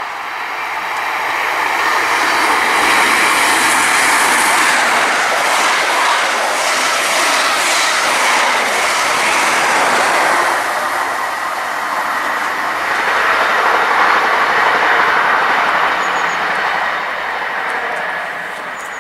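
Great Western Railway High Speed Train with Class 43 diesel power cars passing at speed without stopping: a loud rush of engine and wheel noise that rises as it approaches, with rapid wheel clicks as the coaches go by, swells again about two-thirds through, and fades as it draws away.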